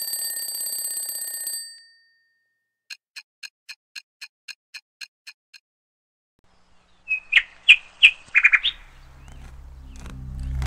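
An alarm clock bell rings for about a second and a half, then about eleven quick clock ticks follow at roughly four a second. A few bird-like chirps sound about seven seconds in, and music fades in near the end.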